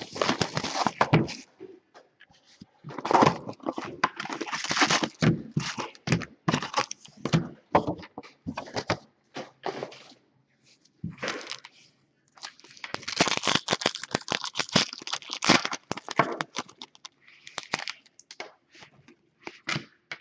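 Foil trading-card pack wrappers crinkling and tearing open, with cards rustling as they are handled; irregular crackles and rustles with short pauses.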